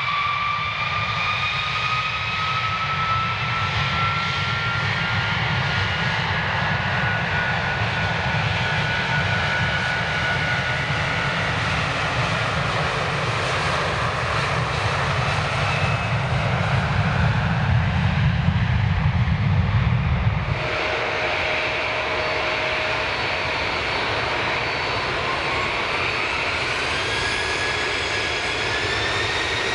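Jet airliner engines at takeoff power at close range: a loud rush and low rumble with a whine gliding slowly upward, building until it cuts off suddenly about two-thirds of the way through. Then an Embraer E170's turbofans run with a steady high whine that starts to rise near the end as they spool up for the takeoff roll.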